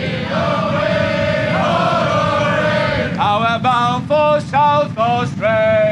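Men's voices chanting loudly together, holding a long note and then breaking into short, rhythmic shouted syllables about three seconds in, over a steady low background rumble.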